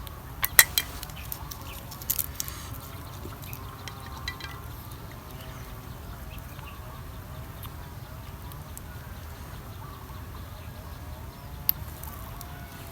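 Someone eating papaya salad: a few sharp crunching bites and mouth clicks, loudest about half a second in and again around two seconds, over a steady low rumble.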